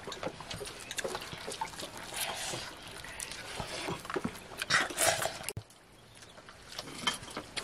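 A hand mixing rice into bean soup on a metal plate: wet squelching with small clicks and scrapes of fingers against the plate. It cuts off suddenly about five and a half seconds in, leaving quieter sounds.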